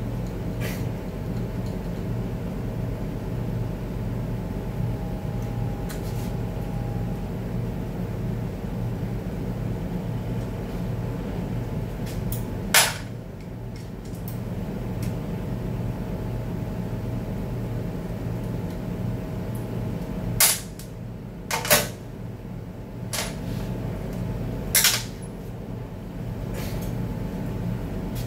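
Steady low workshop hum with a few sharp metallic clanks of hand tools on transmission parts, one about 13 seconds in and a cluster of four between about 20 and 25 seconds.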